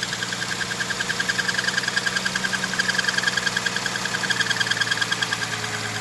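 Ford 3.5-litre V6 idling with no accessory belt fitted, a rapid, even knocking over the running. The mechanic puts the knock down to the water pump, coming from the engine's valley.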